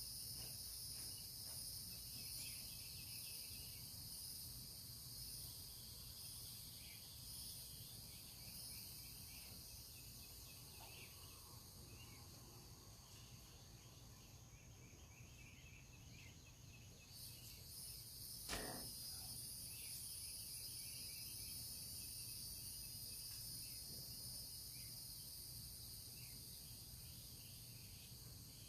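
Faint, steady high-pitched chorus of insects such as crickets, whose upper part drops out for a few seconds in the middle before resuming. A single sharp click a little past halfway is the loudest sound.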